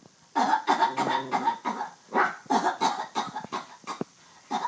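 A person in a coughing fit: a run of harsh, voiced coughs in several clusters, with short breaks between them.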